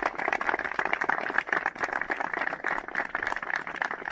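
A small group of people applauding: many hands clapping together in a dense, irregular patter.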